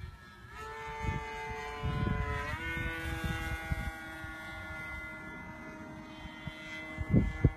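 RC model Tucano plane's motor and propeller whining in flight. The pitch jumps up about two and a half seconds in, then slowly sinks as it flies on, over low irregular rumbles with a loud thump near the end.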